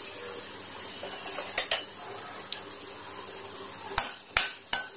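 Dried red chillies and mustard seeds sizzling steadily in hot oil in a kadai, with a couple of pops: the tempering stage. Near the end a steel spoon starts stirring them, clicking against the pan a few times.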